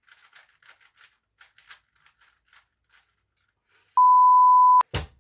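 Faint, quick, irregular clicking of a Rubik's Cube's layers being turned, then a loud, steady electronic beep lasting just under a second about four seconds in, followed by a sharp knock near the end.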